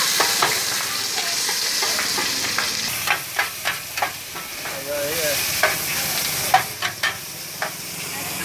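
Meat, bean sprouts and greens sizzling in oil in a wide steel wok, with a steady hiss. From about three seconds in, a metal spatula scrapes and clinks against the pan several times as the food is stirred.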